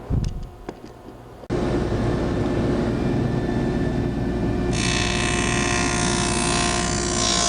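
A few knocks, then a woodworking power tool running steadily, starting abruptly about a second and a half in. From about halfway through, a brighter cutting noise joins as the blade cuts box-joint notches in the wood.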